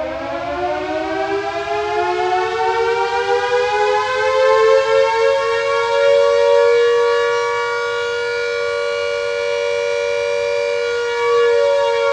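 Air raid siren winding up, its pitch rising over the first few seconds, then holding a steady wail.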